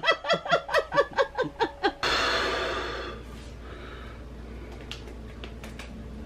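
A woman laughing hard, a quick run of falling 'ha-ha' bursts. About two seconds in it cuts off abruptly into a short hiss that fades within a second, leaving faint room noise with a few light clicks.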